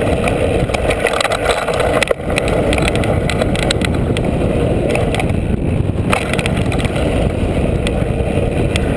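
Mountain bike riding fast down a dirt trail, heard from a camera mounted at the front: a steady rumble of knobby tyre on dirt and wind, with frequent rattling clicks and knocks from bumps in the trail and one short dip about two seconds in.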